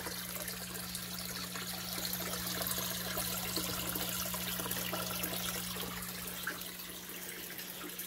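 A stream of water from a hose pouring into a tub of standing water, a steady splashing and bubbling. A steady low hum runs underneath.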